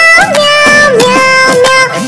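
Hindi children's nursery rhyme: a high-pitched sung voice holding and bending long notes over a loud backing track.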